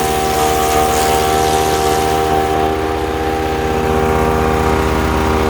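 Ducar wood chipper's small gasoline engine running steadily at a constant speed, with an even, unchanging drone.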